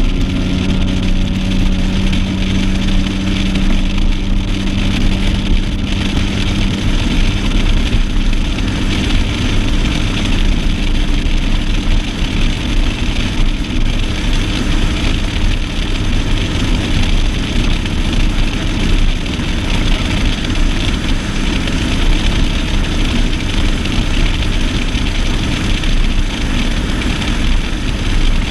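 Stratos bass boat's outboard motor running under way, with rushing wind and water noise over the microphone. A steady engine tone fades after several seconds, leaving the even rush.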